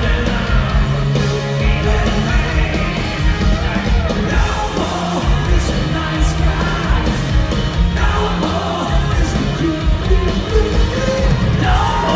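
Live hard rock band playing on stage: electric guitars and a pounding drum kit, with a lead singer's voice singing and shouting over them, heard from out in the audience.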